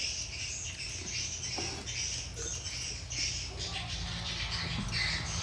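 Dense, high-pitched chirping of many small birds, with a low steady hum underneath that grows stronger near the end.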